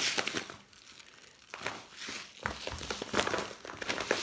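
A 5 kg plastic sack of bird seed being handled and turned over, its plastic crinkling and rustling in irregular bursts, with a quieter spell about half a second to a second and a half in.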